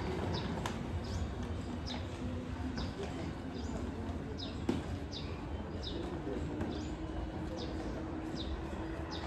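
Short high bird-like chirps, each sweeping downward, repeating about two a second over a steady low rumble from a 221 series electric train pulling away. A single sharp click comes about halfway through.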